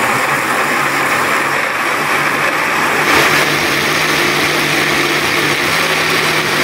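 Countertop electric blender running steadily, pureeing red chilies and garlic in lime juice into a chili sauce; the sound brightens slightly about three seconds in.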